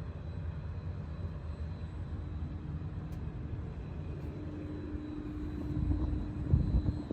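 Small 5-axis CNC milling machine running: a steady mechanical drone with one held tone, growing louder and rougher near the end.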